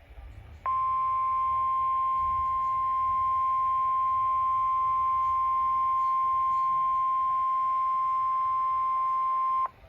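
NOAA Weather Radio warning alarm: a single steady 1050 Hz tone that starts about half a second in, holds for about nine seconds and cuts off just before the end. It is the alert that a warning message is about to be read.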